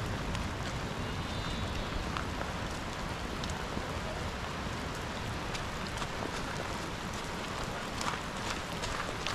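Steady rain falling, with scattered sharp ticks throughout and a low wind rumble underneath.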